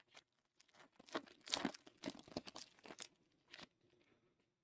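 Foil wrapper of a Donruss Optic football card pack being torn open and crinkled, a quick run of irregular crackles for about three seconds.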